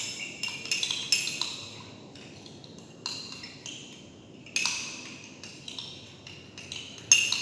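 Spoon stirring a drink in a glass, clinking irregularly against its sides, with the loudest clink near the end.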